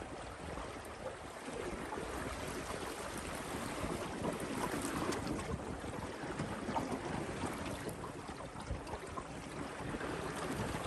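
Water rushing and splashing along the hull of a Springbank 15 sailing dinghy under way, with wind on the microphone.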